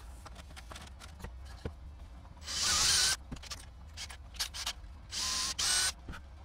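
A small workshop tool run in three short hissing, whirring bursts, the first about two and a half seconds in and two close together near the end, among light clicks and knocks of handling.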